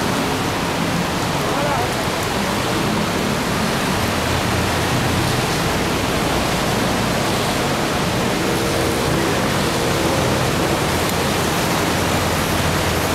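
Steady, loud rushing noise, with faint voices here and there.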